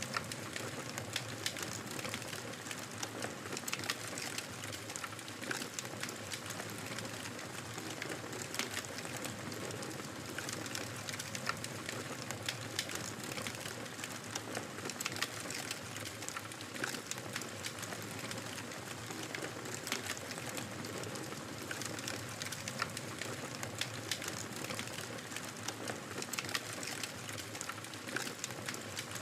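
Fire crackling in a fireplace: a steady hiss with frequent sharp pops and snaps scattered throughout.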